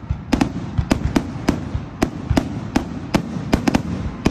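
Fireworks going off: a rapid, irregular run of sharp bangs, about three a second.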